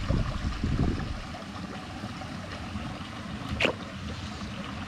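Water sloshing, with one sharp splash about three and a half seconds in: a pirarucu (arapaima) striking at food at the surface.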